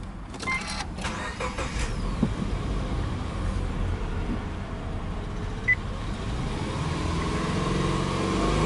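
Subaru Legacy 2.0i's EJ20 flat-four engine, heard from inside the cabin: the starter cranks and the engine catches within the first couple of seconds, then idles steadily. Near the end it is revved, rising to around 3000 rpm.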